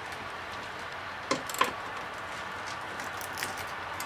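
Hand tools working on a car's brake master cylinder fittings: two sharp metallic clicks a little over a second in, then a few lighter ticks near the end.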